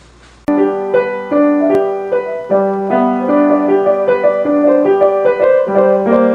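Yamaha grand piano being played: a run of single notes struck over held low notes, starting about half a second in.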